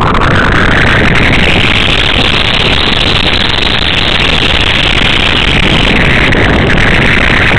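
A Multiplex EasyStar RC foam plane in flight, heard from its onboard camera: the steady loud drone of its electric pusher motor and propeller mixed with wind noise. The pitch rises over the first two seconds, dips about six seconds in, then rises again.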